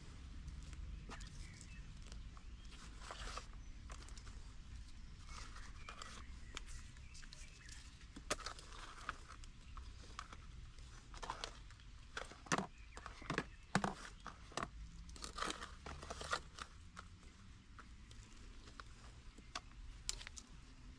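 Soil in plastic plant pots being worked by hand and with a small hand cultivator: scattered scratching, crunching scrapes and light knocks, busiest in the middle.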